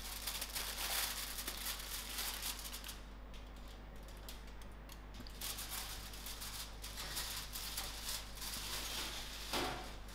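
Aluminium foil crackling and rustling with small clicks as a foil-covered baking dish is handled and slid into the oven, with a brief knock near the end.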